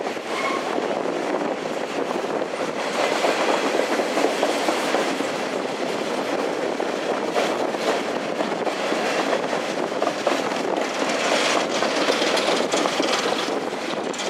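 Empty open-top coal hopper cars of a freight train rolling past close by, their steel wheels clacking and rumbling on the rails in a steady run of clicks and rattles.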